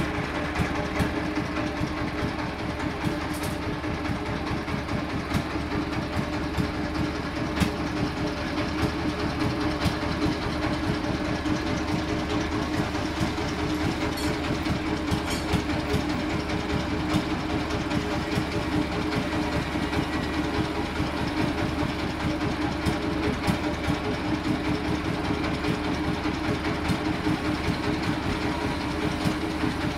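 Large industrial sawmill bandsaw running steadily: a constant hum with a dense, fast, even rattle.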